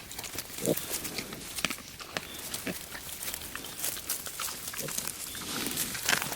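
Wild boars giving short, low grunts about five times, spaced out, over many small crackles and clicks.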